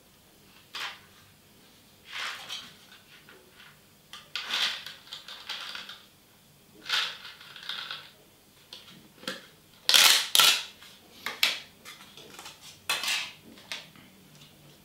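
Irregular crinkles and crackles of a thin clear plastic topping cup and its foil lid being handled and peeled open, with white chocolate pieces tipped out of it. The loudest crackles come about ten seconds in.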